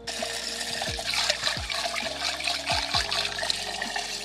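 Water running from a garden hose spray nozzle into a metal pot, a steady hiss as the pot fills.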